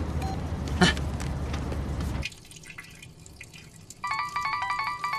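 Steady low car-interior rumble of a moving car, cut off abruptly a little over two seconds in. A quiet tiled restroom follows with faint drips. Near the end, a tune of short, bright stepped notes starts.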